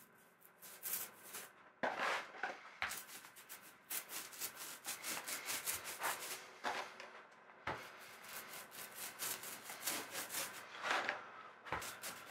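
Paintbrush stroking a liquid coating onto a tapered timber keel piece: a quick run of scratchy brush strokes with short pauses, and three soft knocks.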